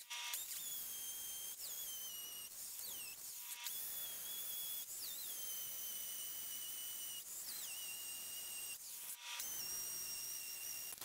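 Corded plastic-bodied hammer drill with a masonry bit boring into a concrete floor: a high motor whine whose pitch sags each time the bit is bearing down, with two short stops.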